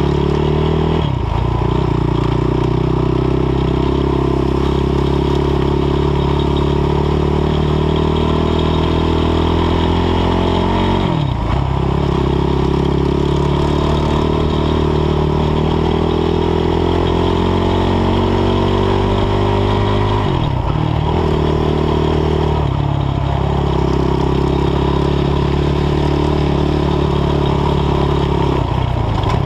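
ATV (quad bike) engine running under throttle while riding, its pitch climbing slowly and dropping sharply as the throttle is let off, about 11 seconds and 20 seconds in, with shorter dips near 23 seconds and near the end.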